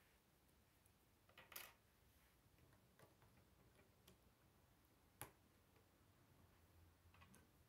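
Near silence with a few faint clicks of plastic K'nex pieces being handled and fitted together, the clearest about one and a half seconds in and a sharp one just after five seconds.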